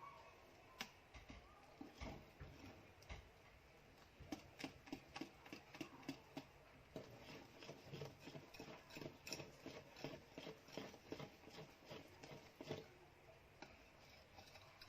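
Cake batter being mixed by hand in a bowl: faint, quick, regular clicks of the utensil against the bowl, densest through the middle.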